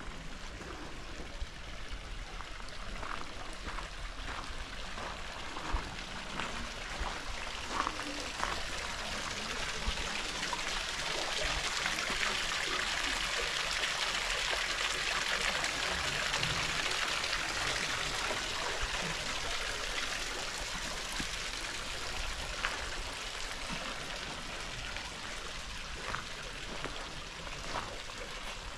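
Running water trickling and splashing steadily, swelling louder through the middle and fading again toward the end, with scattered light clicks.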